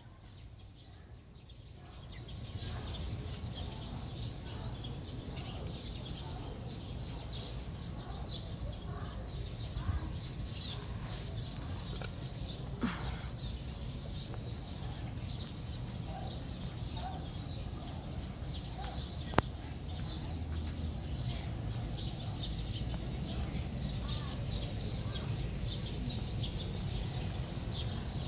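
Outdoor ambience under street trees: many short high bird chirps over a steady low rumble, with one sharp click a little past two-thirds of the way through.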